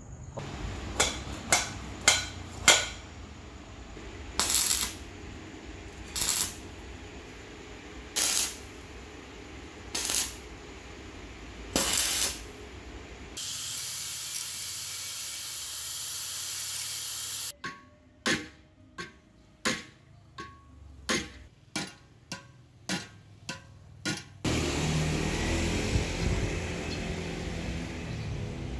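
Short metal clacks and scrapes about every two seconds, then an angle grinder's disc cutting into a steel motorcycle sprocket held in a vise, a steady hiss for about four seconds. A quick run of sharp metal clinks with a slight ring follows.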